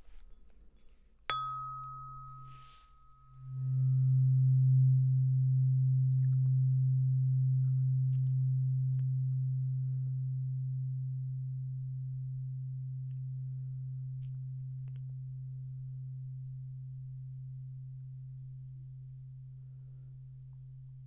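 A low-pitched tuning fork is struck with a sharp tap and a brief high ring about a second in. It settles into a steady hum that swells about three seconds in and then slowly fades away. This is the fading hum used in a hearing test, where the listener says when they can no longer hear it.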